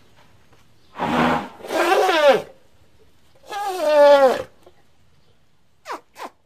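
Elephant calling three times: two calls close together about a second in and a third about three and a half seconds in, each a pitched cry that slides down in pitch. Two very short falling squeaks follow near the end.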